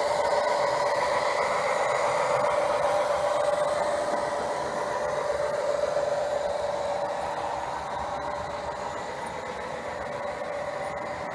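Model train locomotives running on the layout: a steady electric-motor whine with the rattle of wheels on the rails. It grows quieter about halfway through as the passing F7 locomotives give way to their boxcars.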